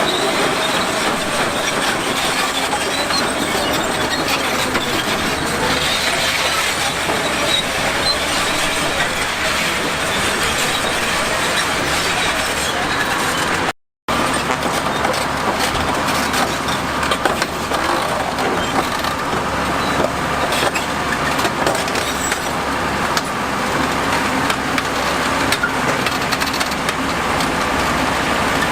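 Heavy earthmoving machinery at work: a diesel-powered crawler machine, typically a bulldozer, running with a continuous clanking and rattling of steel tracks. The sound drops out for a moment about halfway through.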